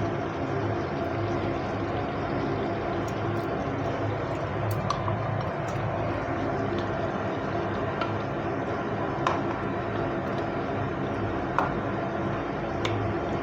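Chicken chaap gravy bubbling in the pan under a steady hum, with a few light clicks scattered through.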